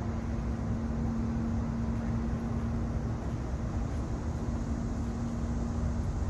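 Heavy diesel engine of a mobile crane running steadily with a low rumble and a steady hum that drops out near the end.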